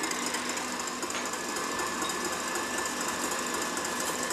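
Electric mixer running steadily, whisking foamy egg whites with cream of tartar toward soft peaks for meringue.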